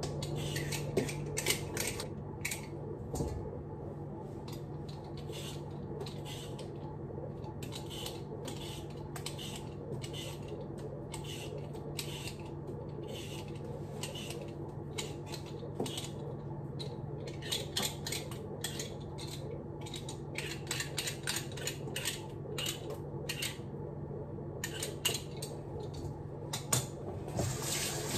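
Kitchenware being handled: many irregular clinks and taps of dishes and utensils, over a steady low hum.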